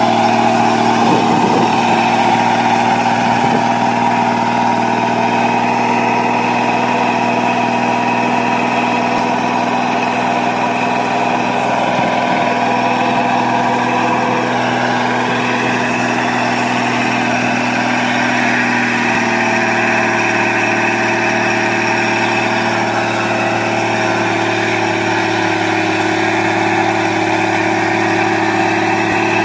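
Vehicle engine running steadily at idle, loud and even. About twenty seconds in, its note shifts.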